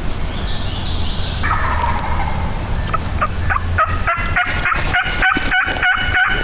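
Wild turkey gobbler gobbling: a fast rattling run of notes in the second half, answering the hunters' calling. Shorter, higher calls come first.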